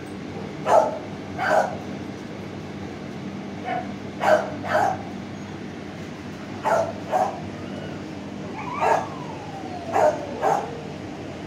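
Shelter dogs barking in short barks, often two at a time, every second or two, with one long falling whine late on. A steady low hum runs underneath.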